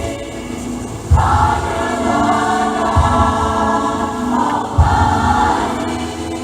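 Church choir singing a Christmas cantata song with accompaniment, a deep bass hit landing about every two seconds.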